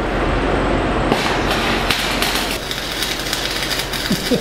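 Arc welding on steel plate: the arc crackles and sizzles steadily over a low electrical hum, and crackles harder for a stretch about a second in.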